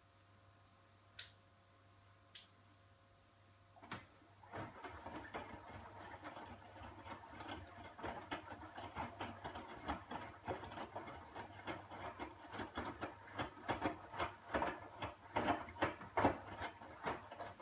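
Hotpoint WMXTF942 front-loading washing machine drum at rest, with two short clicks. About four seconds in, the drum starts one of the faster wash tumbles: wet whites slosh and flop inside it in quick, irregular knocks, then it stops just before the end.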